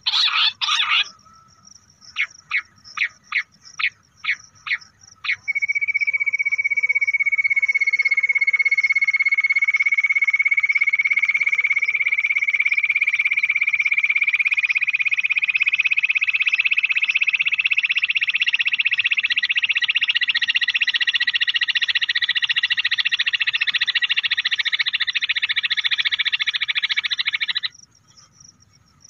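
Recorded bush quail call played back through a speaker as a hunting lure: a run of about eight short, sharp notes, then one long, fast trill held for over twenty seconds, its pitch creeping slightly upward, stopping abruptly near the end.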